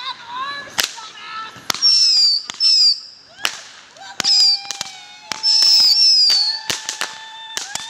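Ground-launched fireworks firing shot after shot, with sharp cracks and pops between high whistles that fall in pitch. From about four seconds in, a lower, steadier whistle runs alongside the bangs.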